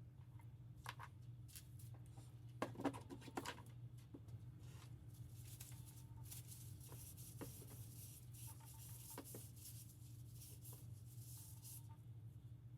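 Faint workbench handling sounds: scattered light clicks and taps of tools and small metal parts, with a short run of sharper clicks about three seconds in and some soft rustling later, over a steady low hum.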